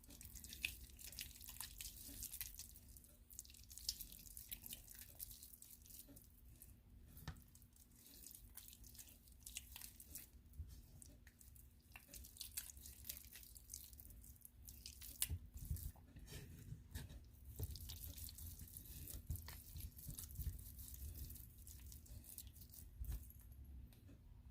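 Faint, irregular wet clicks and squishes of hands rubbing oil and seasonings into raw pork ribs, over a faint steady low hum.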